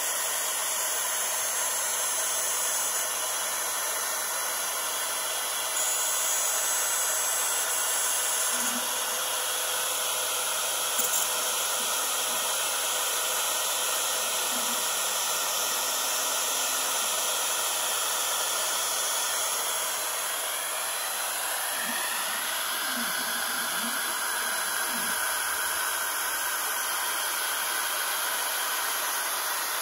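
X-Carve desktop CNC router's spindle running at high speed while a 1/8-inch bit mills through 2 mm aluminium sheet: a steady, high-pitched whirring hiss. About two-thirds of the way through, a faint tone within it bends slightly upward.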